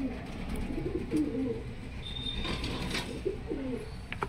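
Domestic pigeons cooing, with a few low, wavering coos about a second in and again after about three seconds.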